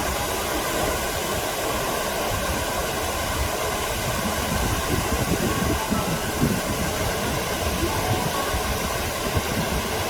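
Waterfall rushing: a steady, loud noise of falling water, with an uneven low rumble underneath.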